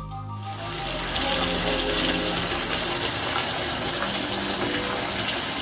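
Background music fades out, then a bath tap runs steadily, water gushing into a bathtub.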